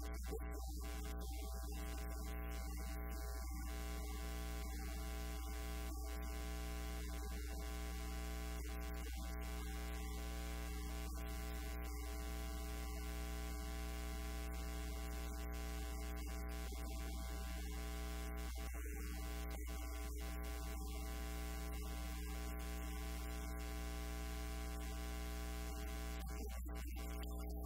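Steady electrical mains hum with many evenly spaced overtones, a fault on the recording's audio feed that covers everything else.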